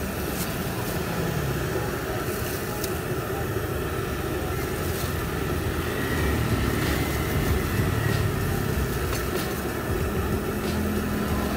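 Steady street traffic noise, engines running past with a continuous low rumble, overlaid by a few light clicks.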